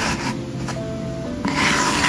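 Recorded stethoscope lung sound of coarse crackles: a rustling, breath-like hiss that fades just after the start and swells again about a second and a half in, with soft background music holding steady notes underneath.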